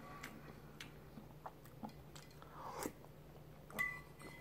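Faint chewing and mouth sounds of a man eating a spoonful of chunky soup with small cubes of chicken. Scattered small clicks are heard, and there are two brief louder moments in the second half.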